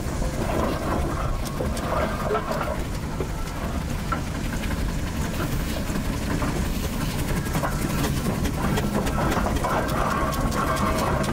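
Tasker steam roller at work: a steady low rumble with scattered light clicks and clanks.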